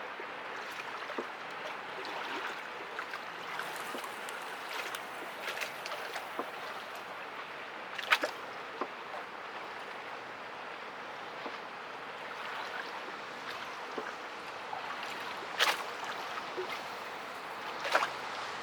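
Steady rush of water from a passing inland gas tanker barge, its wash along the hull, with a few sharp clicks, three of them louder.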